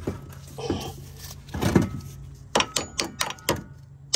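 Hand tools working on a stuck front strut assembly: a rough scraping knock, then from about halfway a quick run of sharp metallic clicks or knocks, about five a second.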